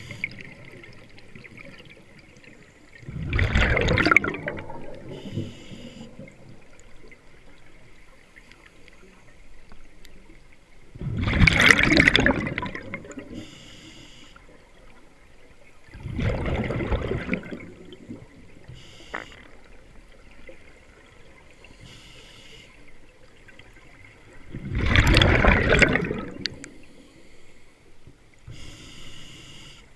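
Scuba diver breathing through a regulator: four loud gushes of exhaled bubbles several seconds apart, with a short faint hiss from the regulator on each inhale between them.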